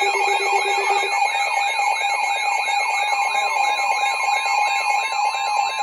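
Weather alert radios sounding their alarm tones at once, several electronic tones layered together: some warble about four times a second, others are held steady. A lower steady tone cuts off about a second in. The alarm announces an incoming severe thunderstorm warning.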